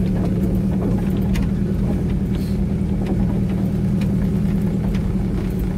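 Pickup truck engine running steadily under way, a low even drone, with scattered light clicks and knocks.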